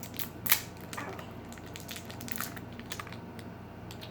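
Crinkling and crackling of a small plastic blind bag being handled and opened: a run of sharp, irregular crackles, the loudest about half a second in.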